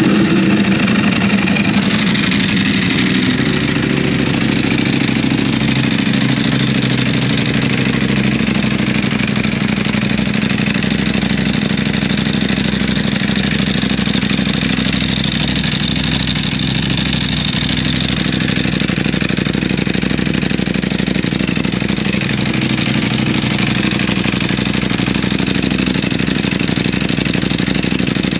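Ducati Panigale V4R's V4 engine breathing through an Akrapovic exhaust, idling steadily just after start-up.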